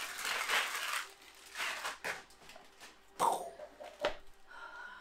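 Plastic and cardboard packaging being handled and rustled in bursts, with two sharp knocks about three and four seconds in.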